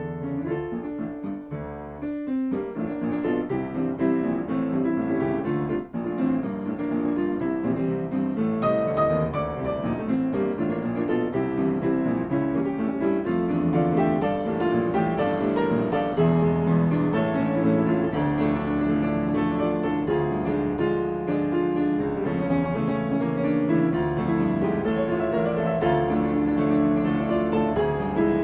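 Piano music: a piano piece playing at an even level, with many notes over a steady accompaniment.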